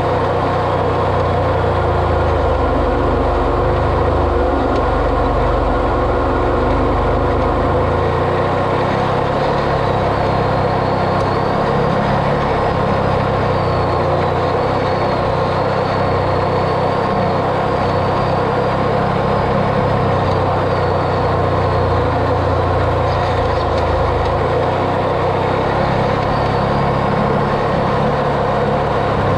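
Off-road vehicle's engine running steadily while driving, a continuous even drone with a low rumble that eases somewhat about eight seconds in.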